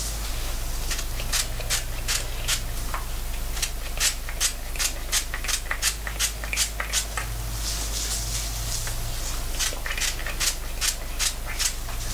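Hand-held trigger spray bottle spritzing onto thick curly hair in quick short bursts, about three a second, in two runs with a pause in between. Gloved hands rub through the damp hair between the sprays.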